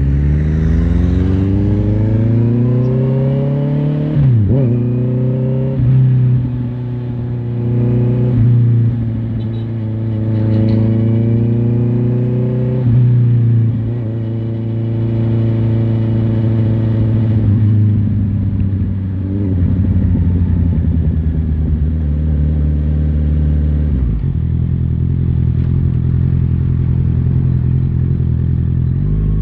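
Honda CBR650R's inline-four engine pulling up through the gears, its pitch climbing and dropping suddenly at each upshift, four or five times in the first half. It then falls away as the bike slows and runs steadily at low revs.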